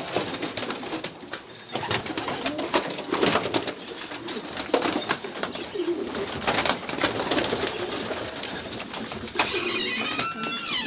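Racing pigeons cooing in their loft, with scattered clicks and rustles throughout. Near the end comes a short, high squeal.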